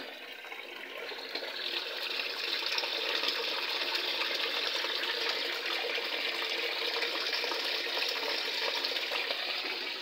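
Wash water from a Panasonic top-load washing machine rushing out through its drain hose into a floor drain. It builds over the first couple of seconds to a steady gush. This is the draining stage before spin dry.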